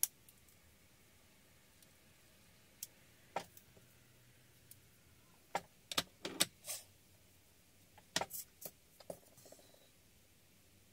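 Scattered light taps and paper rustles from small paper flower and leaf embellishments being handled and set down on a scrapbook page. Short, sparse sounds, busiest about six seconds in and again around eight seconds in.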